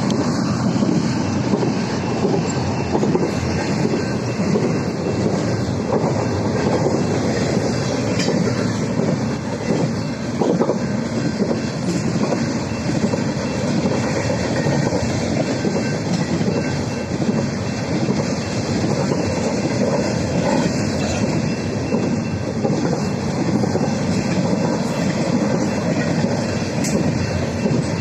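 BNSF intermodal freight train rolling past a grade crossing: a steady, loud rumble of steel wheels on rail with the clickety-clack of wheels over the rail joints.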